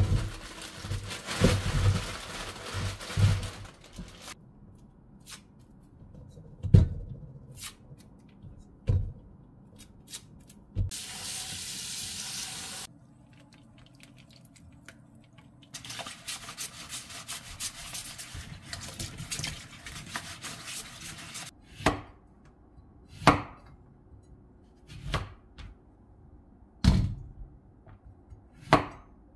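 Water running into a steel bowl of lemons in a stainless-steel sink, with a few knocks of fruit against the bowl, and a second spell of running water later. Near the end, a chef's knife cuts through lemons onto a plastic cutting board in five separate strokes about two seconds apart.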